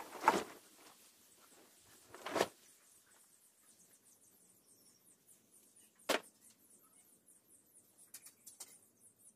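Sparse handling sounds of wooden boards and a glue bottle: a short scuff or knock just after the start and another a couple of seconds in, then a sharp click about six seconds in and a few faint ticks near the end, with near quiet in between.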